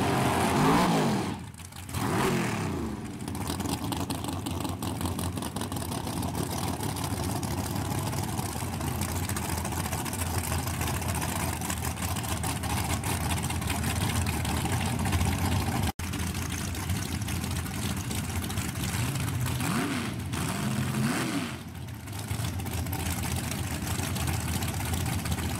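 Drag-race engines at the starting line: one revs hard out of a burnout near the start, then engines idle loudly and blip the throttle while staging, with another rising rev about twenty seconds in.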